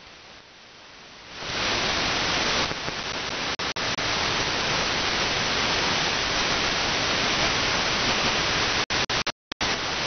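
Radio static hiss from a web SDR receiver tuned off-station on AM: faint at first, then loud from about a second and a half in. It cuts out briefly a few times, twice near the middle and in a short cluster near the end.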